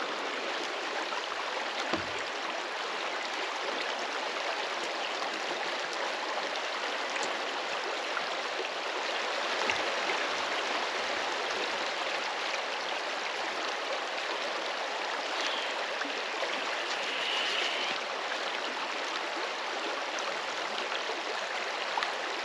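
Shallow river running fast over a cobble bed: a steady rushing, babbling flow of water.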